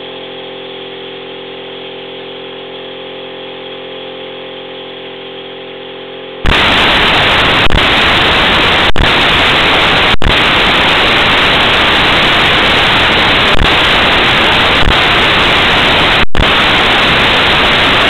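Vacuum pump motor running steadily with an even hum. About six seconds in it is abruptly replaced by a much louder, steady static-like hiss, broken by a few brief dropouts.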